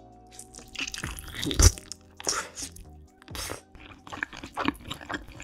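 Close-miked crunching and chewing as crispy-skinned chicken is bitten off the bone, a string of sharp crunches with the loudest bite about a second and a half in, over background music.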